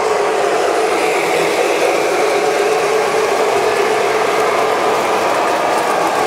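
Lionel-type O gauge electric toy trains running on the layout's metal track: a steady mechanical whir and rattle of motors, gears and wheels.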